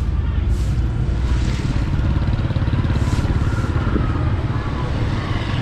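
A motorbike engine running close by, a steady fast low putter, with a few short hissy bursts of street noise over it.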